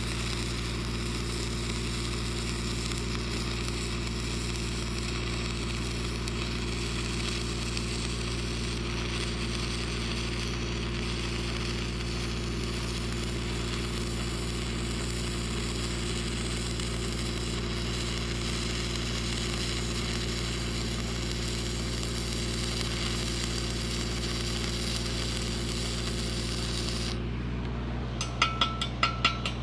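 Stick welding arc with a 7014 rod, a steady crackling hiss, over the steady drone of a Lincoln SAE-300 engine-driven welding machine. The arc breaks off a few seconds before the end, and the engine keeps running under a quick run of sharp metallic taps.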